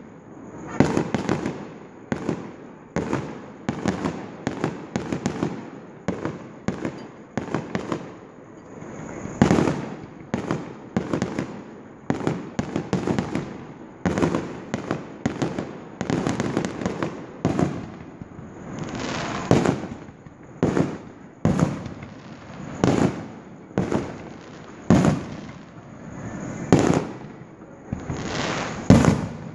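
Fireworks display: aerial shells bursting one after another as a run of sharp bangs, often several a second, each trailing off briefly, with a few louder bursts standing out.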